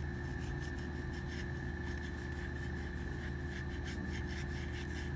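Alcohol swab rubbing over the polymer grip of a Glock 19 pistol in quick, irregular scrubbing strokes, cleaning off grip-tape adhesive residue, over a steady background hum.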